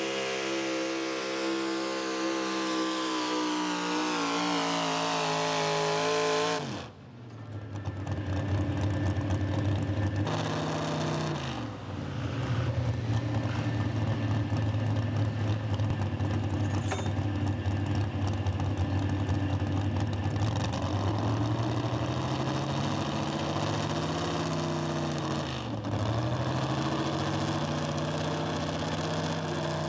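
Pro Stock 4x4 GMC pulling truck's engine under full load on the sled, its pitch falling steadily as it bogs down. It then cuts off abruptly, and the engine runs on at a steady high note that dips briefly and comes back up twice.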